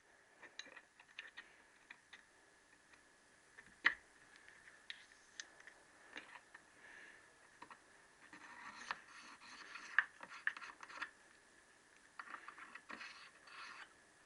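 Faint clicks and scraping of a steel gudgeon pin being slid and twisted in a piston's pin bore, with one sharper metal knock about four seconds in and rasping scrapes later on.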